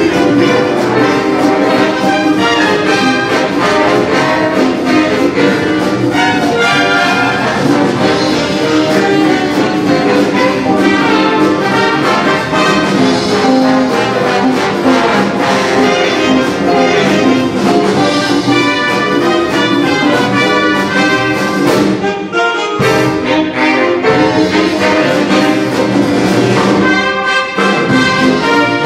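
Big band playing a swing arrangement: trumpets and trombones with saxophones over a rhythm section of drums, electric archtop guitar and piano. The band breaks off briefly about three-quarters of the way through, then plays on.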